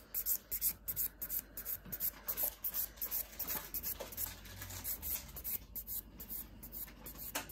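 Nail file rubbed back and forth over gel nails in quick scratchy strokes, about three a second, filing off the cured top coat.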